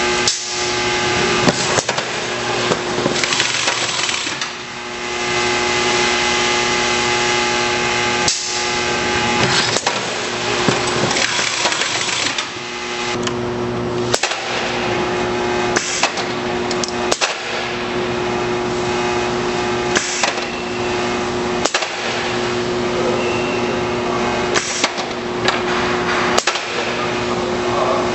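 BEL 252 case sealer running: a steady motor and drive hum with a hiss over it. Irregular sharp knocks and clacks come from the machine's mechanism, and the running sound breaks off briefly several times.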